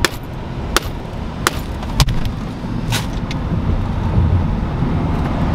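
Car cabin noise while driving at road speed: a steady low rumble of road and engine, with several sharp clicks or knocks in the first three and a half seconds.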